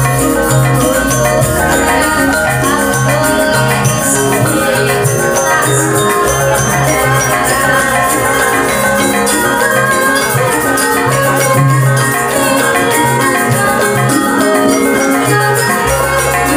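Loud amplified Javanese gamelan music: a female sinden sings into a microphone over ringing metallophones and a steady low pulse, while the seated sinden clap along in rhythm.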